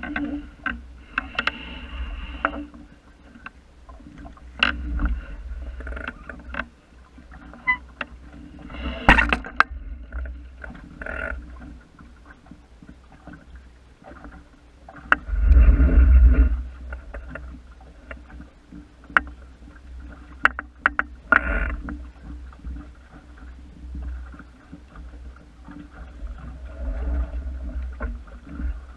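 Wind buffeting the microphone and water lapping against a small sailing dinghy's hull, with scattered sharp knocks from the boat; the loudest gust comes about halfway through.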